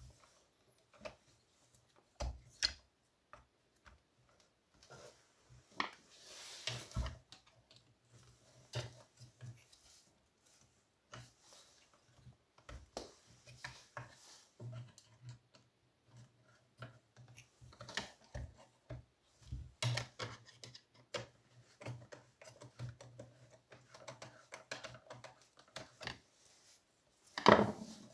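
Small clicks, taps and scrapes of a hand tool and parts being worked on a Partner 410 chainsaw, with a louder knock near the end.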